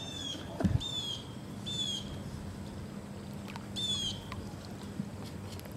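A bird calling four times, each call a short, high note that slurs downward, and a dull low thump about half a second in.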